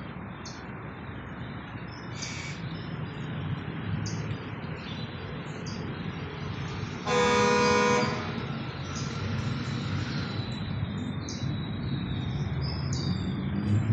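Steady rumble of road traffic with birds chirping, and a single car horn honk about a second long midway through, the loudest sound.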